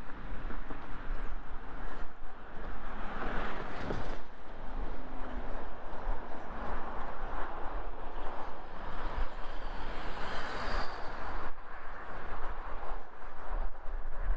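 Road traffic: a steady rush of tyres and engines from cars on the street alongside and the freeway below, swelling as vehicles pass about three seconds in and again around ten seconds.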